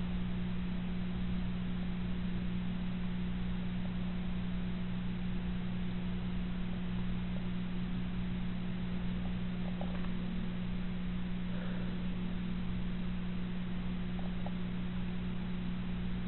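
Steady low electrical hum with a faint hiss, broken only by a couple of faint ticks.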